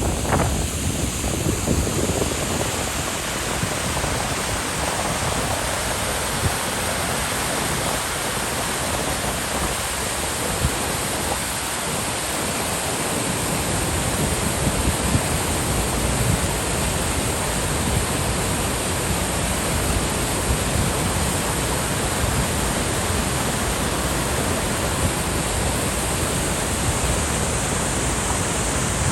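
Elbow Falls waterfall rushing with a steady, even roar of falling water.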